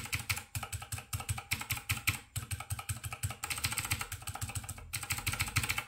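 Fast typing on a Keychron K2 mechanical keyboard with clicky blue switches, its main keys fitted with rubber O-rings under the keycaps to dampen the sound. The keystrokes come in a rapid, continuous clatter, broken by two brief pauses.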